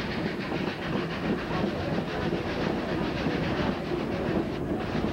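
Narrow-gauge steam train under way, heard from aboard: a steady clatter of the cars' wheels on the rails over the noise of the working steam locomotive.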